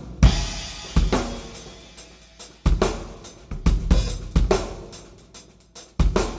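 Drum kit played: Yamaha 9000 Recording Custom drums with Paiste 505 cymbals, recorded through a Yamaha EAD10. A heavy bass drum and cymbal hit just after the start rings out. Further accents follow about a second in, a quicker run of drum hits in the middle, and another heavy hit near the end.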